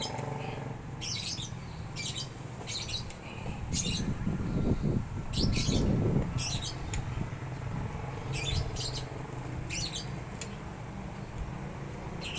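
A small bird chirping repeatedly, short high chirps about once a second, over a steady low background hum. A louder low rumble swells and fades between about four and six and a half seconds in.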